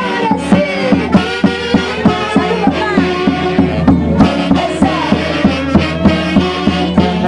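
Live band music with a fast, steady beat under several melody instruments playing together, some lines sliding in pitch.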